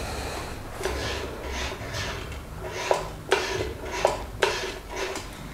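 Metal-cased TIG welding foot pedal being pressed and released under a shoe, giving several light clicks and knocks over a steady background hiss.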